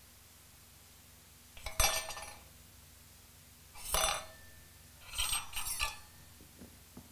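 Metal push rods clinking as they are handled and set down while their ends are being greased. There is a clink about two seconds in, another about four seconds in, then two in quick succession, and faint ticks near the end.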